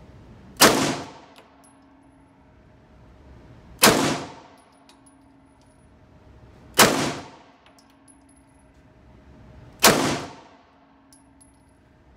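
Four single shots from a 9mm FMK pistol, about three seconds apart, each sharp crack followed by a short ring off the hard walls of an indoor range.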